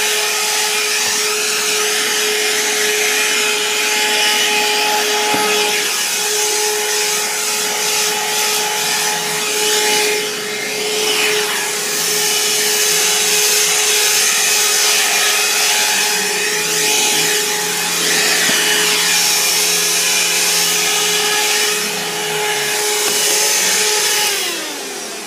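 Shark cordless 15.6-volt handheld vacuum running with its brush attachment: a steady motor whine with rubbing and scrubbing that rises and falls as it is worked over the stair steps. Near the end the motor is switched off and winds down with a falling pitch.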